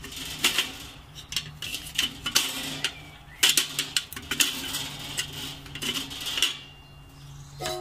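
Metal vent slider under a charcoal kettle grill's ash pan being pushed back and forth by its lever: irregular metallic scraping and clicking.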